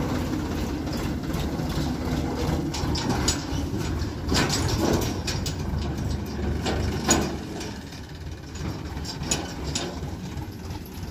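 Tractor engine running as it pulls a loaded farm trailer away, growing fainter over the last few seconds. Sharp clanks from the trailer come about four and a half and seven seconds in.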